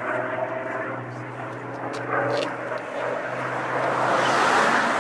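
Supermarine Spitfire's V-12 piston engine droning in a display flypast, a steady note under a rushing sound that grows louder toward the end as the fighter comes closer.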